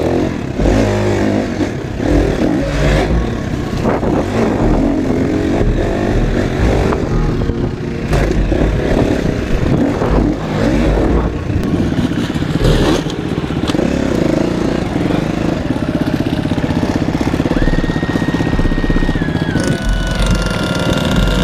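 Enduro motorcycle engine heard from the bike's own onboard camera, revving up and down with the throttle while riding a dirt track, with wind and chassis clatter; in the second half it runs more evenly at lower revs.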